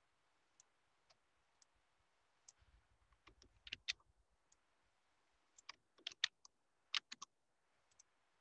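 Faint computer keyboard keystrokes in a few short clusters of clicks, with a final pair of clicks near the end.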